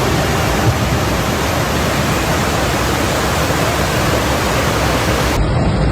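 Floodwater rushing, a loud steady hiss-like noise with no rhythm, that cuts off suddenly about five seconds in.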